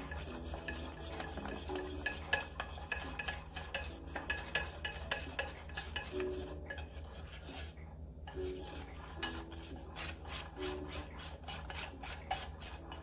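A utensil stirring flour into egg yolk batter in a mixing bowl, with quick repeated clicks and scrapes against the bowl as the batter is mixed.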